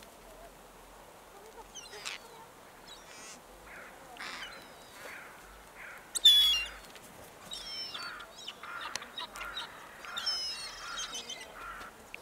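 Wild birds calling in the background: a scatter of short calls and chirps, becoming busier in the second half, with one louder sharp call about six seconds in.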